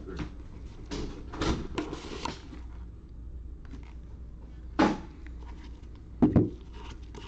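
A cardboard trading-card box with a foam insert being handled and opened: rustling and scraping for a second or so, then a sharp knock about five seconds in and two quick knocks near the end.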